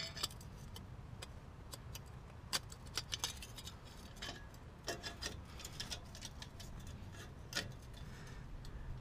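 Light metallic clicks and clinks at irregular intervals as a steel exhaust tip is handled, slid and turned on the end of a tailpipe, over a low steady rumble in the background.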